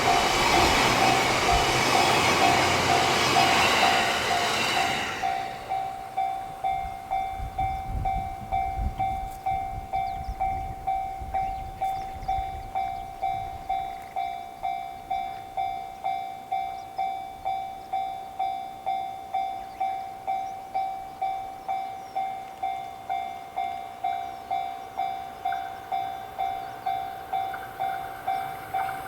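Japanese level-crossing warning bell ringing its repeated 'kan-kan' at about two strikes a second. For the first five seconds a JR Sobu Line train passes loudly over the crossing, then its noise dies away while the bell keeps ringing.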